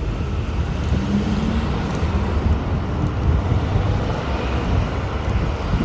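City street traffic noise: a steady low rumble of road vehicles on the avenue.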